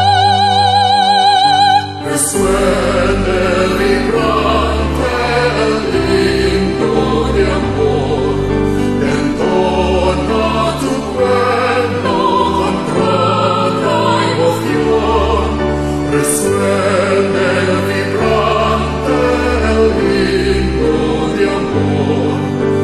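Choral music with instrumental accompaniment. A single voice holds a note with wide vibrato, then about two seconds in the choir and a full accompaniment come in with a cymbal crash.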